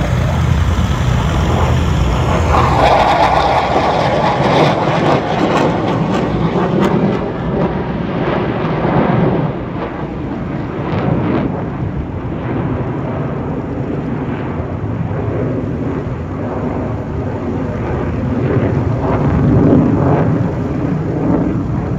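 Jet engine roar from Dassault Rafale fighters flying overhead: a loud, dense rumble that is strongest a few seconds in, eases to a steadier roar, and swells again near the end.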